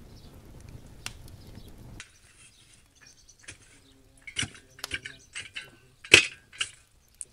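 An open fire crackling softly. About two seconds in this gives way to a long-handled shovel scraping and knocking through hot embers and coals in a ground hearth: a string of sharp scrapes and clinks, the loudest a little past six seconds.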